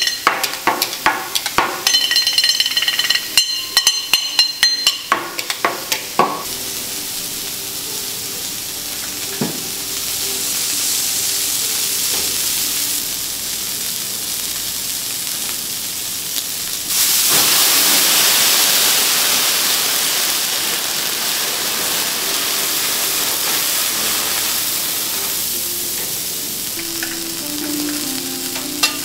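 Beef steak searing on a teppanyaki steel griddle. For the first few seconds rapid metallic clicking and ringing comes from a metal pepper mill worked over the meat. Then a steady sizzle takes over and suddenly grows louder and hissier a little past halfway.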